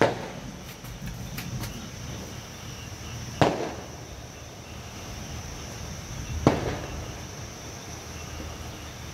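Steady rain hiss of a night rainstorm, broken three times by a sharp loud knock that dies away quickly: once right at the start, again about three and a half seconds in, and again about six and a half seconds in.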